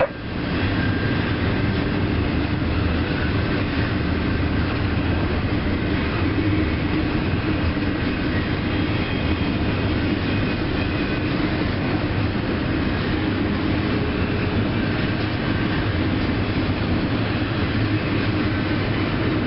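Double-stack intermodal container train rolling steadily past: wheels on rails and the rumble of the well cars, with no locomotive close by.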